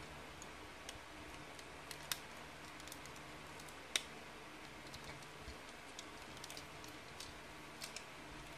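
Faint, scattered clicks of a small plastic transforming robot toy being handled and its parts snapped into place, over a low steady hum. The loudest clicks come about two and four seconds in.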